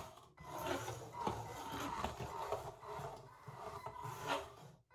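A 3 lb beetleweight combat robot's drive motors whining, the pitch shifting up and down as it drives and turns across a hardwood floor, with its wheels scuffing on the wood. The sound cuts out briefly just after the start and again near the end.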